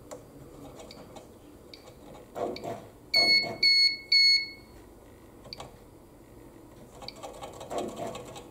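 Three short electronic beeps from a Degussa Dental ceramic furnace's control panel, about half a second apart, a little past three seconds in. They are false key-press triggers set off as the membrane keypad's ribbon cable is touched. Faint handling clicks come and go around them.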